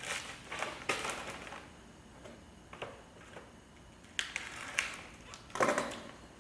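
Packaging and small parts being handled: a few short rustles and clatters, with a cluster near the start, one near three seconds, and more from about four seconds on.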